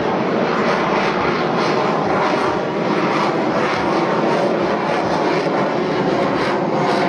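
Lockheed Martin F-22 Raptor's twin Pratt & Whitney F119 turbofan jet engines running at high power during a demonstration pass: a loud, steady jet noise with a crackling edge.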